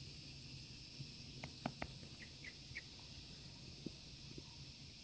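Faint outdoor field ambience: a steady high hiss, with a few sharp clicks about a second and a half in, followed by three or four short high chirps.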